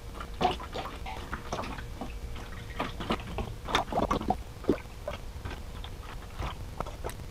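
Used automatic transmission fluid poured from a plastic tub into a funnel on a plastic oil jug, with irregular splashes.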